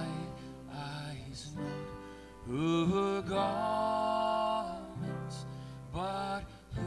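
A man singing a slow song to his own acoustic guitar accompaniment, holding one long note about halfway through.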